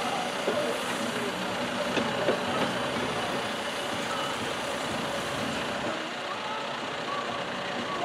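John Deere backhoe's diesel engine running steadily while its hydraulic boom and bucket are worked, with a few light knocks in the first three seconds.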